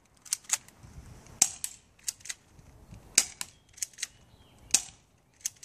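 Stinger 6mm airsoft pistol being fired over and over: sharp, short snapping clicks, mostly in close pairs about a fifth of a second apart, recurring every second or so.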